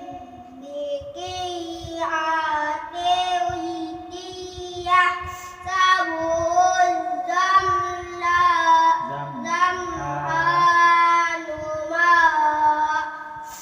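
Melodic Quran recitation in Arabic: one voice chanting long, held and ornamented notes, pausing briefly between phrases.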